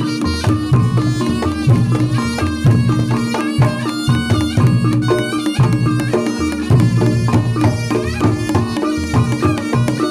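Reog Ponorogo gamelan playing: a reedy slompret shawm carries a wavering melody over fast, busy kendang drumming.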